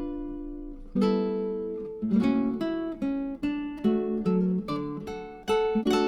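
Background music: acoustic guitar strummed and picked, with notes ringing out and changing chords every second or so.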